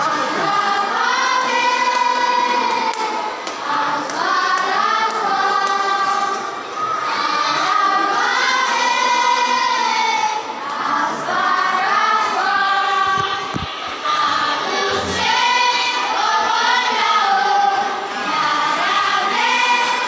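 A children's school choir singing together, holding long notes between shorter phrases.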